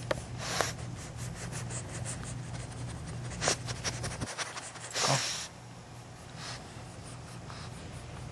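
Pug puppies snuffling, with a few short noisy snorts, the loudest about five seconds in, over a steady low hum and small rustles and clicks.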